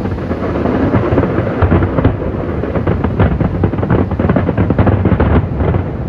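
Fireworks going off in a dense barrage: many rapid bangs and crackles close together over a continuous rumble, thinning slightly near the end.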